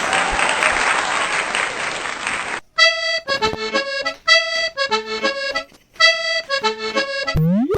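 Applause for about two and a half seconds, then a short bouncy instrumental tune with a reedy, accordion-like tone played in quick phrases, ending in a fast rising sweep that cuts off.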